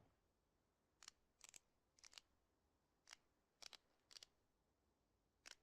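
Faint, sharp clicks, about seven of them, several in quick doubles, coming at irregular intervals.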